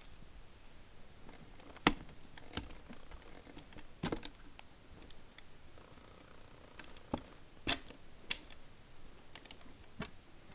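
Scattered light clicks and taps, about a dozen at irregular intervals, the loudest about two seconds in and a pair of sharper ones near eight seconds.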